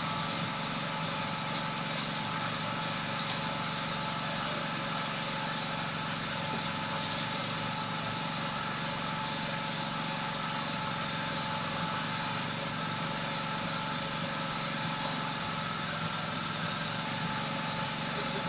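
Steady mechanical hum from a running motor, holding several constant tones without rising or falling, with a few faint ticks.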